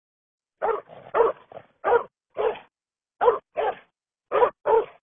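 A string of about ten short, sharp barks, some coming in quick pairs, starting about half a second in after silence.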